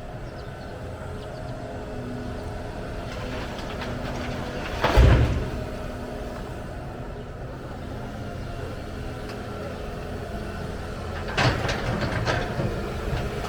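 Excavator's diesel engine running steadily under load, with a loud crash of soil and rock dumped into a truck bed about five seconds in and another, longer rattling dump near the end.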